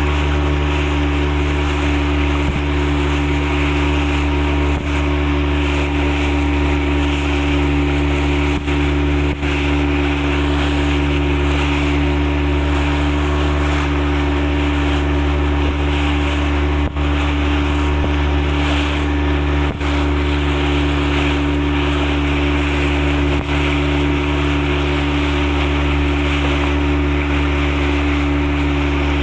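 Boat engine running at a steady speed, a constant low hum with water and wind noise over it.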